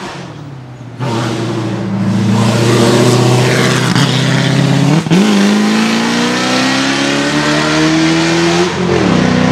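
De Tomaso Pantera's Ford 351 Cleveland V8 accelerating hard, its pitch climbing through each gear, with a quick upshift about five seconds in and another near the end. A fainter engine dies away in the first second before the car's sound comes in loud.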